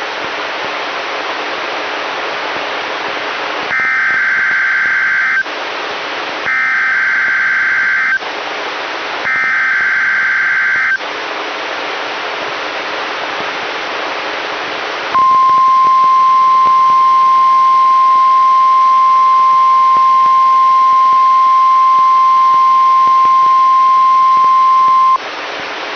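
NOAA Weather Radio test broadcast. After a few seconds of static hiss come three short bursts of SAME digital header data, each under two seconds. The 1050 Hz warning alarm tone then holds steady for about ten seconds and cuts off sharply near the end.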